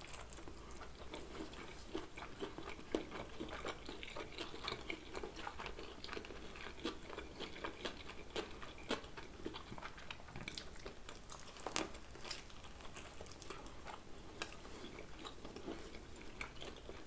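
Pizza being bitten and chewed close to the microphone: a quiet, irregular run of small mouth clicks and crunches, with a few louder bites about three seconds in and near the twelve-second mark.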